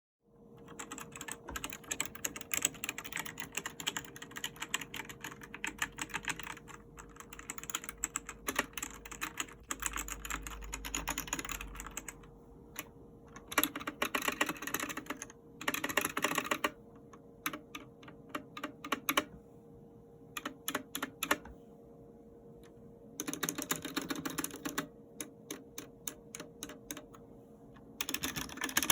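Mechanical keyboard with Gateron optical yellow linear switches being typed on: stretches of rapid typing alternate with slower, single keystrokes and short pauses. A faint steady hum sits underneath.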